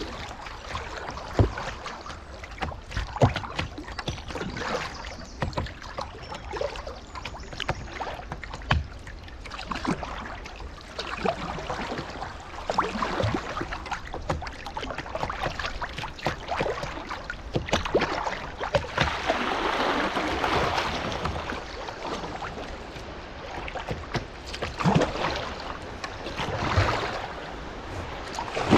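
Kayak being paddled down a gentle river: paddle blades dipping and splashing, water lapping at the hull, with scattered knocks and splashes throughout. The water rushes louder for a few seconds about two-thirds of the way through.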